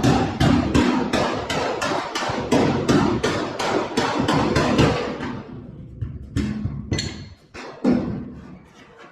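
Body hammer tapping on the steel sheet metal of a car body panel flange, a quick even run of about three ringing taps a second for five seconds, then slowing to a few separate taps. The hammering is meant to move the flange and work out low spots in the panel.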